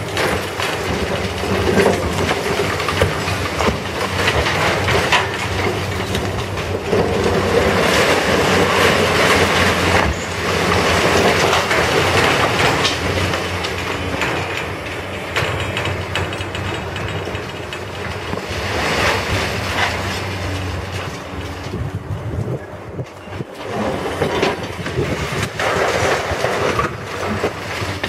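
Building demolition by crane and wrecking ball: the crane's engine running with a steady low hum under continual rattling and crashing of falling masonry and debris. It is loudest in the first half and eases for a while after about 22 seconds in.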